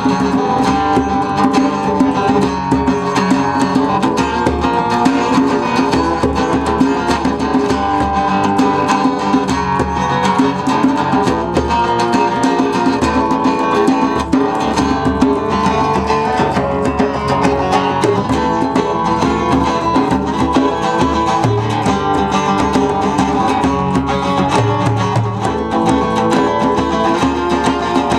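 A band playing an instrumental passage led by strummed guitar.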